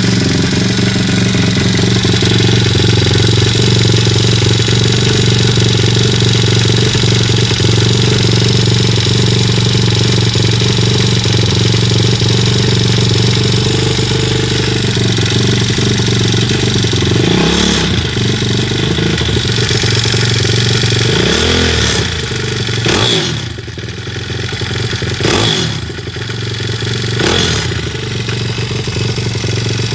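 Kayo pit bike's YX 160cc single-cylinder four-stroke engine running steadily, then revved in about five short blips in the second half. It carries a knocking noise that the owner cannot place and asks experts to identify.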